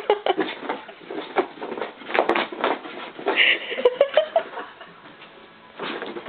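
Small bichon-poodle mix dog scuffling and pattering about, with many short clicks and scuffs and a brief whine about three and a half seconds in, between bouts of barking at its reflection.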